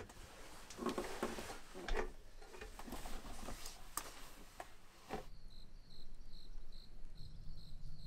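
Knocks, clicks and rustling of someone climbing up through a camper's roof hatch. About five seconds in this gives way to crickets chirping in an even pulse, two or three chirps a second, with a low steady rumble joining near the end.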